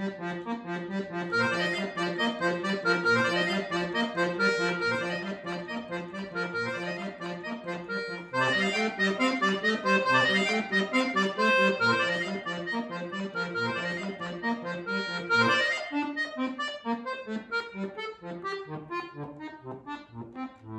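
Chromatic button accordion playing a fast, lively tune over an even oom-pah accompaniment of bass notes and chords from the left hand. It gets louder about eight seconds in and thins out and softens in the last few seconds.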